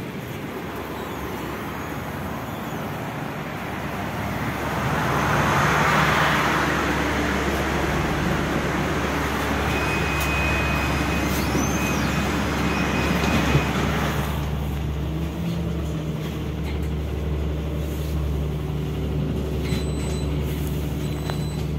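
NefAZ city bus heard from inside the cabin as it pulls away and drives along the street: a steady low drivetrain hum with road and traffic noise that swells loudest about six seconds in.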